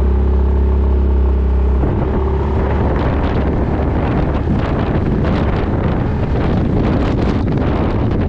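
Yamaha Majesty 400 single-cylinder scooter engine running steadily. About two seconds in it gives way to gusty wind buffeting the microphone as the scooter rides on.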